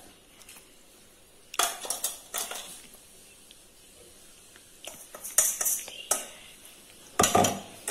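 A metal spoon scraping and knocking inside a steel mixer-grinder jar as powdered roasted wheat flour is emptied out into a glass bowl. There are a few separate scrapes and clinks with quiet gaps between them, and the loudest comes near the end.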